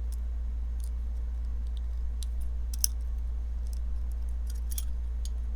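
Small metallic clicks and taps as the parts of a Peña Apache folding knife are handled and fitted back together, with a sharper click about three seconds in and a few more near the end, over a steady low hum.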